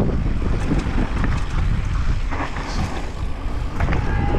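Wind buffeting the action camera's microphone as a mountain bike rolls down a trail, with scattered clicks and rattles from the bike over rough ground. Near the end a steady high-pitched squeal starts, as the disc brakes come on for the stop.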